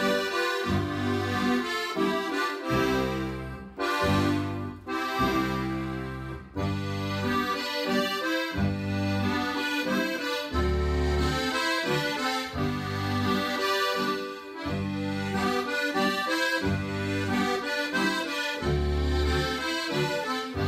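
Styrian diatonic button accordion (Steirische Harmonika) by Schmidt playing a tune, deep bass notes sounding under the melody and chords, with brief breaks about four and six and a half seconds in.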